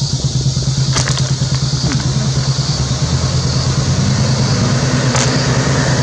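Vehicle diesel engine idling steadily with a low, even hum, and a steady high hiss above it. Two brief sharp clicks come about a second in and again near the end.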